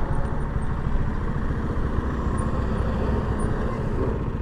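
Janus Phoenix 250 motorcycle's single-cylinder engine running steadily under way at a constant speed, heard from the rider's position together with road noise.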